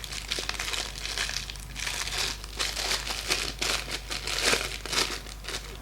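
Plastic packaging crinkling and rustling in irregular crackles as a parcel is unwrapped by hand.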